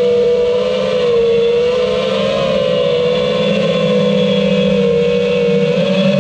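5-inch FPV quadcopter's motors and propellers whining steadily at cruising throttle, the pitch wavering slightly as the throttle changes.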